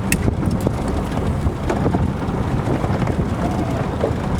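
Steady low rumble aboard a fishing boat, engine and wind buffeting the microphone, with a few sharp clicks about a tenth of a second in.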